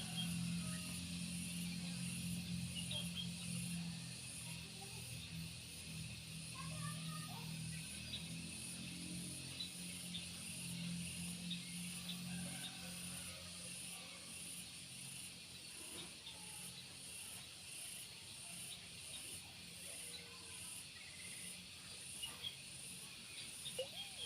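Insects, crickets or cicadas, shrilling steadily at two high pitches, with a low hum underneath that fades out about halfway through and a few faint chirps.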